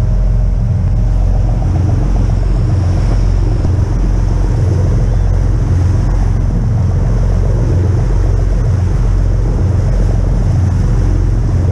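Sportfishing boat's engine running steadily underway, a low throbbing drone.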